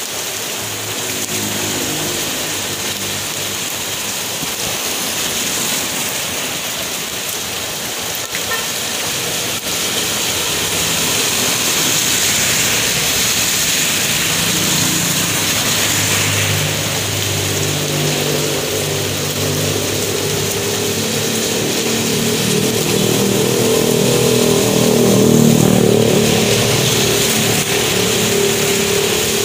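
Steady rain falling on a wet road. A motorbike passes about halfway through, and a car follows near the end, the loudest moment.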